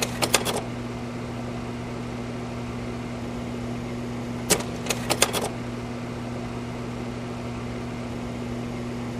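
Slide projector running with a steady hum from its fan and motor, its slide-change mechanism clacking twice: a quick run of clicks right at the start, then a sharp click about four and a half seconds in followed by another quick run of clicks.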